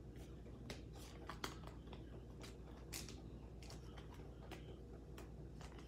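Faint, scattered crinkles and ticks of a clear plastic card sleeve and a baseball card being handled as the card is slid into the sleeve, over a steady low hum.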